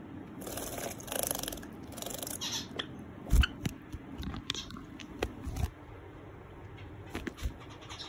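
Java sparrow splashing in a small plastic bird bath, three short bursts of fluttering water in the first couple of seconds, followed by a thump and a few light knocks and clicks as it hops out of the bath.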